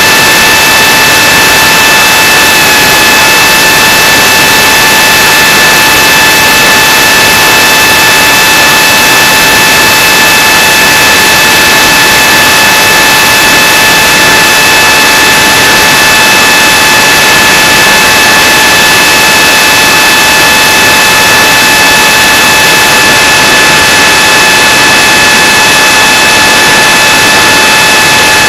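Onboard recording of a Hardcore 44 FPV wing's Cobra 2814 brushless motor and APC 6x5.5 propeller at speed: a steady high whine under a loud, even rush of wind on the microphone.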